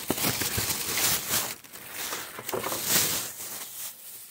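Close, scratchy rustling and scraping handling noise as a stiff molded cardboard packing tray is moved about against the microphone. It stops suddenly near the end.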